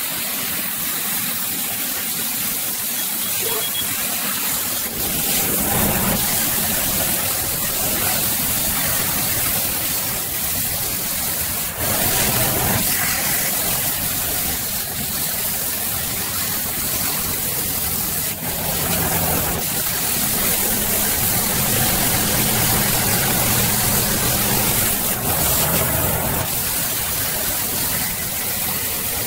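CNC plasma cutter torch cutting stainless steel sheet: a loud, steady hiss of the arc and air jet that runs without a break.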